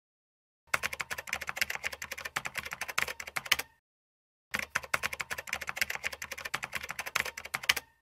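Rapid computer-keyboard typing clicks in two runs of about three seconds each, with a silent gap of under a second between them: a typing sound effect.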